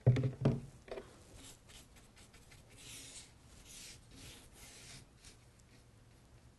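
A chip brush scratching softly over a painted picture frame as glaze is brushed on, with a few soft strokes between about one and five seconds in. Two brief louder sounds come right at the start.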